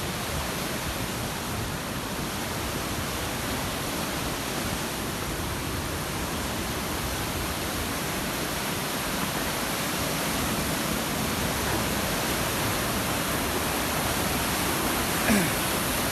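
Steady rush of a fast-flowing mountain river, with one short knock near the end.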